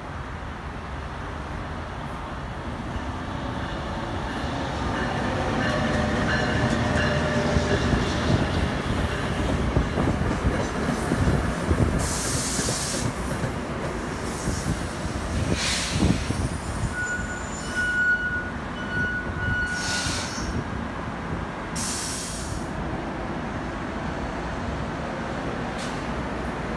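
NJ Transit commuter train moving through the station, its wheels squealing on the rails over a steady rumble that builds up. Several short bursts of hissing come through partway in.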